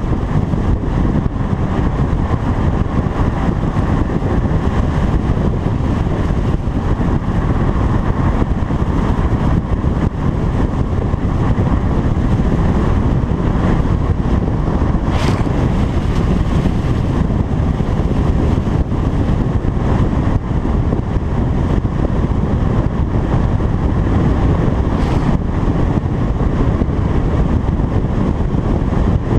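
Steady rush of wind and road noise picked up by a camera mounted outside on the hood of a moving car. There is a sharp tick about halfway through and a fainter one near the end.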